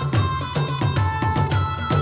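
Background music: a steady beat of low hand-drum strokes whose pitch slides down, under a held melodic line.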